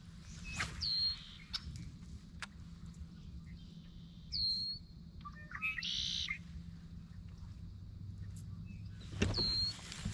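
Wild birds calling: one short, high call repeated three times, about a second in, midway and near the end, with a busier, chattering call around six seconds in. A few sharp clicks sound in the first few seconds.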